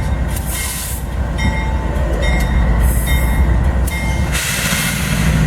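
Train wagons rolling past with a heavy low rumble and intermittent high wheel squeal. A steady low engine hum comes in near the end.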